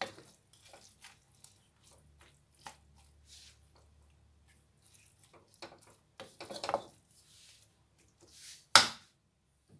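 Wooden utensils tossing stir-fried noodles in a metal wok: soft scrapes and light taps, a busier stretch about six to seven seconds in, and one sharp knock against the wok near the end, the loudest sound.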